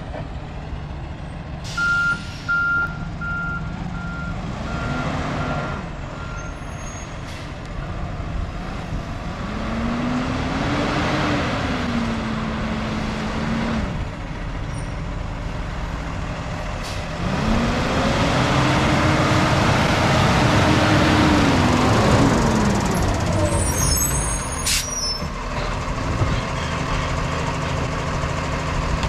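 Diesel engine of a Freightliner garbage truck with a Labrie Expert 2000 side-loader body running, with a backup alarm beeping steadily for several seconds near the start. The engine then revs up and back down twice, the second time louder, and a short burst of clatter follows near the end.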